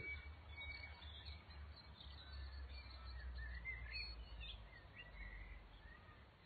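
Faint birdsong: several short chirps and calls from birds in the trees, over a low steady rumble.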